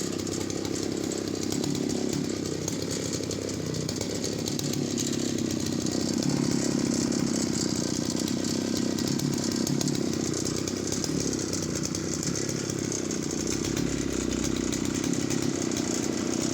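Jonsereds 751 two-stroke chainsaw held at high revs, cutting through a log about 17 inches thick with a semi-chisel chain. The engine note stays steady under load.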